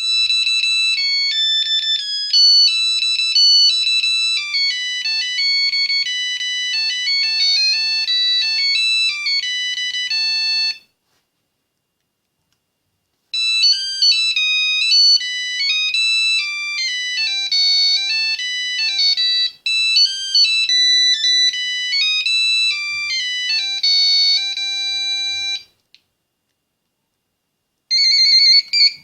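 Nokia 8110 phone playing ringtone melodies, high-pitched with several notes at once: one tune for about eleven seconds, a pause of a couple of seconds, a second tune for about twelve seconds, then a brief start of a third near the end.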